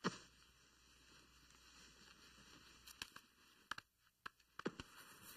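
Near silence: a faint hiss broken by a few soft, short taps, one right at the start and a handful more in the second half.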